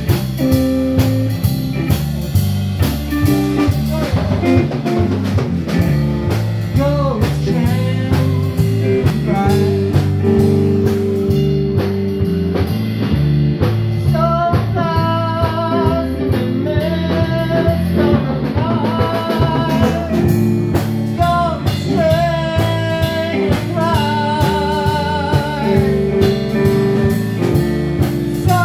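Live blues band playing: electric guitar, bass guitar and drum kit keeping a steady beat, with a man singing at the microphone.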